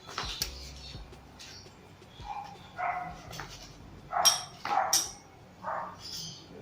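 A dog barking, about five short barks spread over a few seconds, with a few light clicks near the start.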